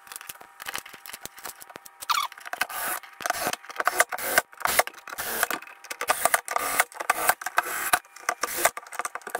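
Screws being turned by hand with a screwdriver into the plastic case of a jump box, and the case being handled: an irregular run of scraping, rubbing and clicking that grows louder about two seconds in.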